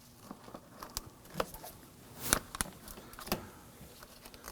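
A handful of light clicks and taps of a small plastic trim button being handled and lined up for fitting into a car door, the sharpest a little past halfway.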